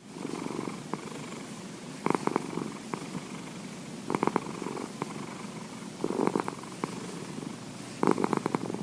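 Domestic cat purring heavily, a fast pulsing purr that swells louder about every two seconds, in time with its breathing.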